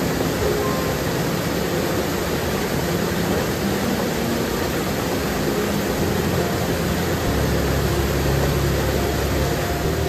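Small cascades of a rocky mountain stream rushing steadily over boulders. A deeper rumble comes in about seven seconds in.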